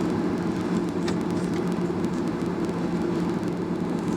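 Skymark Boeing 737-800 airliner's jet engines running, a steady hum with a constant low drone.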